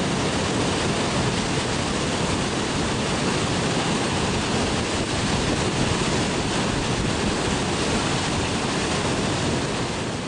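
Whitewater river rapids rushing, a steady even noise with no break.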